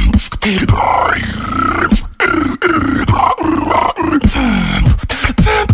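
Vocal beatboxing into a close microphone: growling, pitched vocal tones that bend up and down, laid over sharp percussive clicks and kick-like hits. From about four seconds in, the percussion comes faster and denser.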